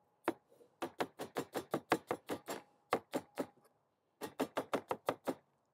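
Vegetable cleaver chopping through an onion onto a plastic cutting board: quick runs of chops, about five a second, with short pauses between runs.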